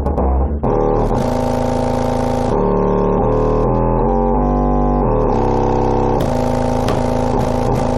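Rebuilt JL Audio W7 subwoofer playing bass-heavy music at high power, about 4,000 watts, its cone pumping hard. A run of deep bass notes changes every half second or so, with a brief drop in level about half a second in.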